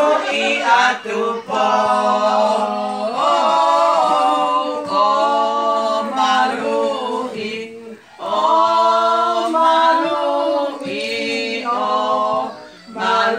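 Voices singing long, held notes over a steady low note, with a short break about eight seconds in.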